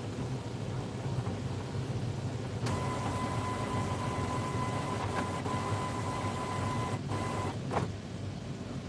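Epson WorkForce inkjet printer running its initialization cycle after an ink cartridge replacement: a steady low mechanical hum, with a motor whine that starts about a third of the way in and runs for about four and a half seconds, then a knock near the end.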